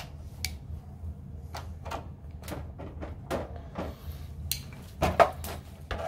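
Irregular light clicks and clacks of plastic and small metal parts being handled: the plastic bracket of a refrigerator evaporator fan motor and its small metal retaining clips being fitted. There are about a dozen sharp clicks spread through, the loudest near the end.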